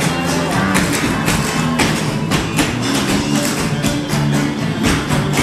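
Music with the rapid, rhythmic clicking of several cloggers' tap shoes striking the stage in time with it.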